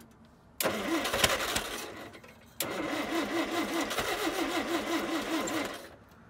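Starter cranking the carbureted engine of an old Allis-Chalmers forklift in two tries, the first about two seconds long and the second about three, with an even chug of about five compressions a second. Neither try leaves it running.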